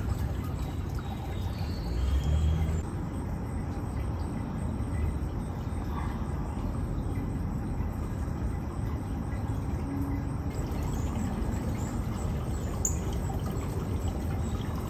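Steady pouring and trickling of water in a garden pond. The sound shifts slightly about three seconds in and again at about ten and a half seconds.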